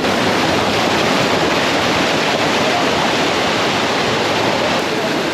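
Waterfall rushing steadily over rocks, a loud, even roar of falling water.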